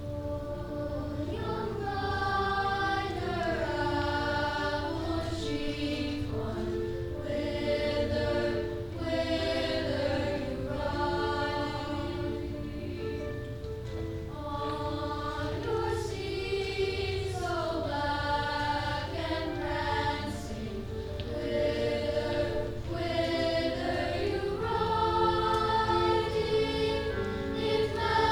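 Youth choir singing a traditional Czech song in several parts, with piano accompaniment.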